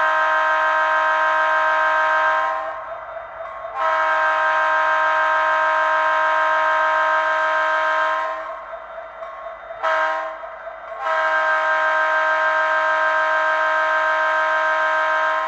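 Train horn sounding the grade-crossing signal: two long blasts, a short one, then a final long blast, each a steady chord.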